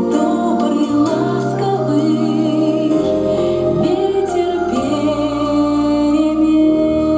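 Children's vocal ensemble singing over an instrumental backing track, with long held notes sung with vibrato.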